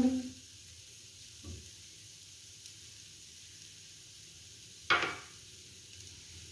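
Potato stuffing cooking in oil in a non-stick pan on a low flame, a faint steady sizzle. About five seconds in there is one short, sharp sound of the silicone spatula against the pan as the stuffing is mixed.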